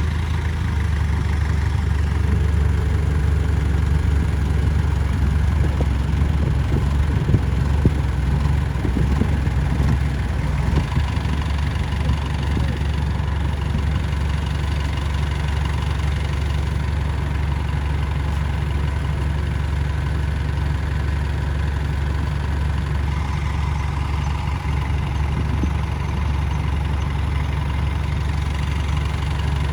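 Heavy-equipment diesel engine running steadily at an even low pitch, with a couple of short knocks about seven to eight seconds in.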